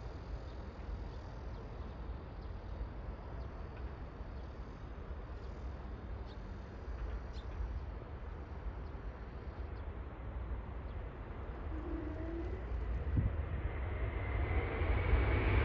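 Twin-engine jet airliner on the runway: a distant low rumble that builds over the last few seconds into a louder roar with a whine as the plane comes closer. A few faint bird chirps around the middle.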